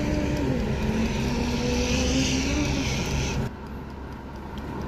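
Black + Decker air fryer running, its fan giving a steady whooshing hum with a wavering low tone over it. The sound drops abruptly to a quieter hum about three and a half seconds in.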